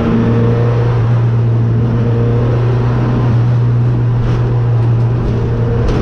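Car engine droning steadily with road noise, heard inside the cabin while cruising at an even speed.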